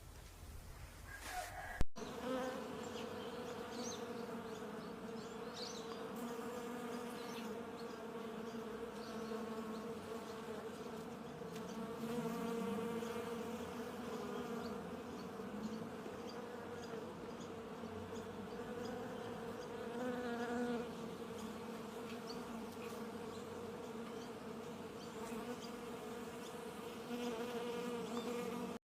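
Flying insects buzzing in a steady, continuous drone. It starts just after a brief click about two seconds in and cuts off suddenly near the end.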